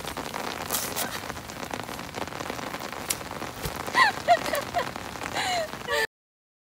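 Steady rain falling on wet pavement, with a few short high-pitched vocal squeals about four seconds in and again about five and a half seconds in. The rain cuts off suddenly about six seconds in.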